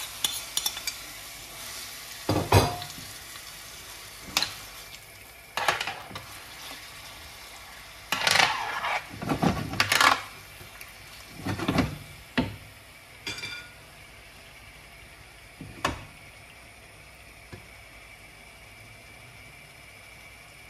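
Yogurt-marinated boneless chicken sizzling in a little oil in a nonstick grill pan, while a metal spoon scrapes and clinks against the plate and pan as the pieces are pushed in and spread out, with a few heavier knocks as the pan is shifted on the stove. The clinks and scrapes come in clusters over roughly the first sixteen seconds, then only the steady sizzle is left.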